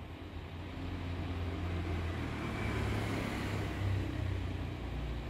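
Hot-air rework station blowing steadily with a hum and hiss, growing a little louder in the middle, as it heats the solder of a phone LCD connector.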